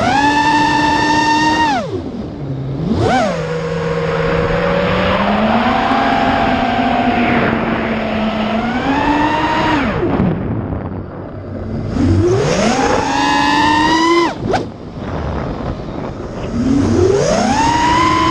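FPV quadcopter's motors whining, the pitch climbing and falling steeply several times as the throttle changes. One motor is bad and causes oscillations and extra noise.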